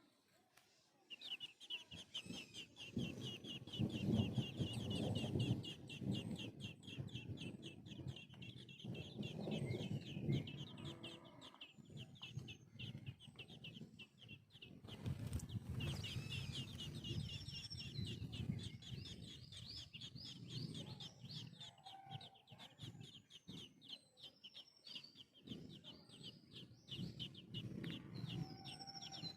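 Hatchlings begging for food at the nest: a rapid, continuous high-pitched chirping that starts about a second in and keeps on, with a few separate higher calls over it. A low, uneven rumbling noise runs underneath.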